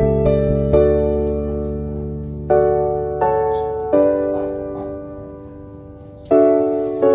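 Slow background piano music: notes and chords struck at a gentle pace, each ringing out and fading before the next.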